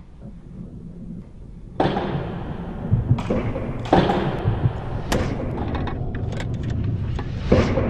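Heavy thuds and metallic clanks as a red metal skateboard-ramp frame is set down on a concrete floor and fitted together: five main hits, with lighter clicks in between.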